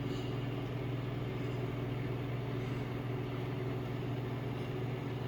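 Microwave oven running under load, heating a cup of water: a steady, even hum. It is powered from an Inergy Kodiak battery power station's inverter.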